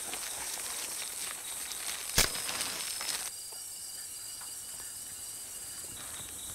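Steady high-pitched hiss of night insects, with plastic bags rustling as they are handled and hung on a cord, and one sharp knock about two seconds in, the loudest sound.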